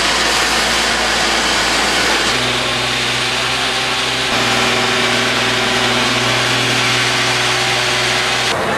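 Fire truck engine running steadily under a loud, even rushing noise. Its low hum comes in about two seconds in and cuts off near the end.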